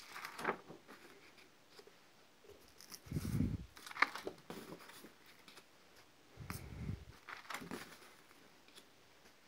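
Pages of a spiral-bound scrapbook of pasted magazine clippings being turned by hand: paper rustling and flapping, three times a few seconds apart, each with a soft thud.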